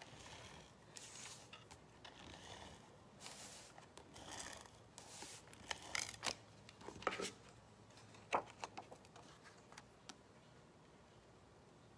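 Quiet paper-crafting sounds: cardstock and paper pieces being slid and handled on the work surface, soft swishes followed by a run of short clicks and taps, stopping about ten seconds in.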